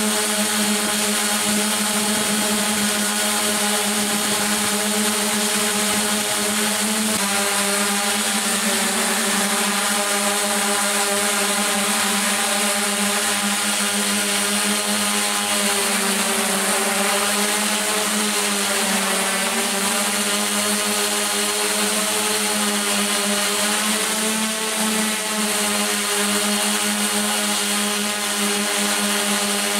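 Electric motors and propellers of a Droidworx ADX-4 coaxial multirotor drone buzzing steadily in flight, heard close up from the camera it carries, with the pitch wavering up and down as the motor speeds change.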